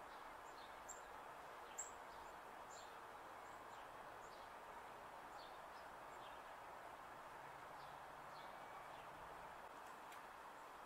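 Near silence: a faint steady outdoor hiss with small birds chirping faintly, short high chirps scattered throughout, and two brief clicks about one and two seconds in.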